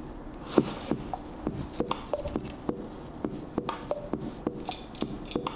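Quiz countdown timer: a steady ticking beat, about three ticks a second, some ticks carrying short pitched notes.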